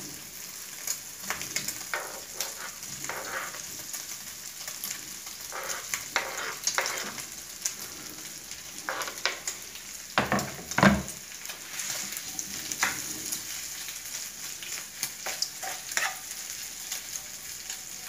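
Diced mortadela and bacon sizzling in bacon fat in a frying pan, with scattered clicks and scrapes of a knife stirring the pieces. A couple of louder knocks come about ten seconds in.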